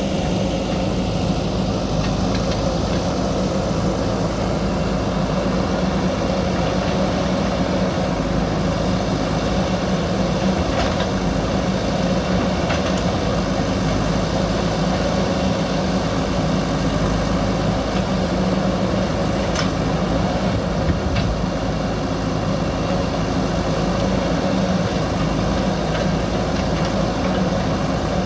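Diesel engine of a JCB backhoe loader running steadily at a constant speed, with a few faint clicks now and then.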